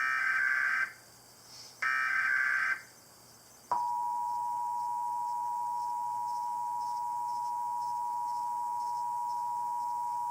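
Emergency Alert System tones. Two short bursts of the screechy digital SAME header data, each about a second long, are followed about four seconds in by the EAS attention signal, a steady two-tone sound (853 and 960 Hz) that holds.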